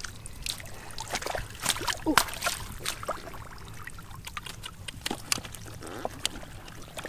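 Irregular wet splashes and slaps in shallow muddy water, from stranded fish flipping on the mud and bare feet wading through the puddle.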